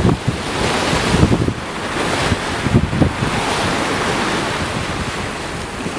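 Strong wind buffeting the microphone over a steady rushing of the sea.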